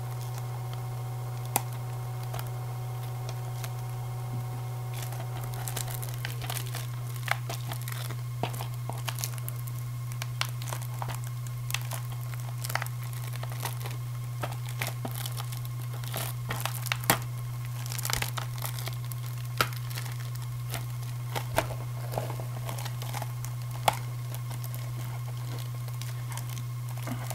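Plastic wrapping on a DVD case crinkling and tearing as it is pulled off, with scattered clicks and taps from handling the case. A steady low hum runs underneath.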